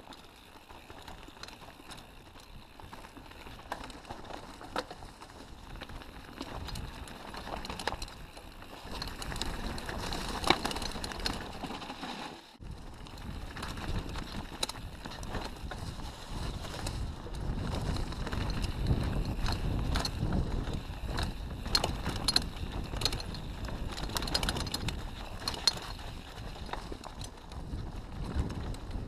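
Mountain bike ridden over dirt singletrack: tyres crunching over soil, leaves and roots, with the bike rattling and sharp knocks over bumps. A low rumble of wind and trail noise on the camera microphone grows louder in the second half. There is a brief dropout about twelve seconds in.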